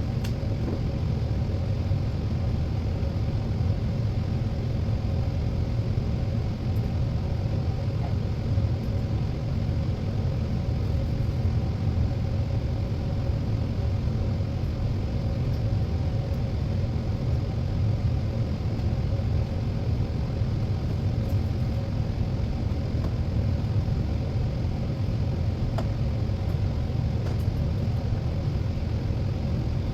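Steady low mechanical rumble with a faint hum, unchanging throughout, and a few faint clicks.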